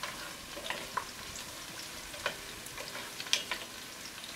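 Garlic and crushed red chilies sizzling in hot olive oil in an enameled Dutch oven, with a wooden spoon stirring and tapping against the pot now and then.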